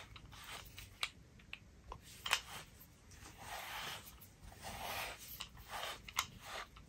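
Slicker brush raking through a cat's belly fur in a series of soft scratchy strokes, with a few light clicks between them.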